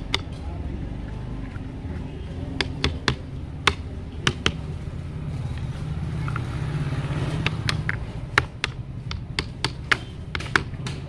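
Sharp metallic taps and knocks, irregular and coming faster near the end, as a flat steel bar is worked against the lead terminal posts of a lead-acid battery under assembly. A steady low rumble runs underneath.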